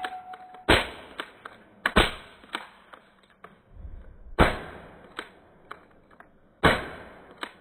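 Four sharp, loud cracks from a 4.5 mm pistol, unevenly spaced a little over one to two and a half seconds apart, each dying away quickly, with fainter clicks between them.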